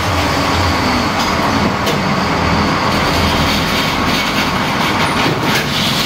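Metal lathe running steadily and loudly, its chuck spinning a warped Yamaha RX-King right-side clutch cover so the cover can be faced flat.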